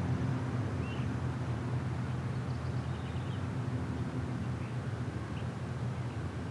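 A steady low rumble, with a few short, faint bird chirps over it.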